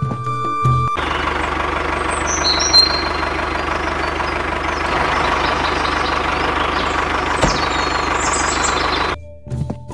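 Tractor engine running steadily, starting suddenly about a second in and cutting off abruptly near the end, with a few faint high chirps over it.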